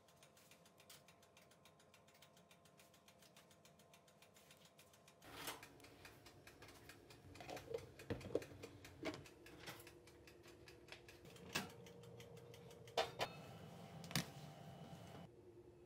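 Quiet kitchen food-prep sounds: scattered light knocks and clinks of a spoon, a glass bowl and containers being handled and set down on the counter and a wooden cutting board, starting about five seconds in, a few with a short glassy ring. Before that there is only a faint, fast ticking.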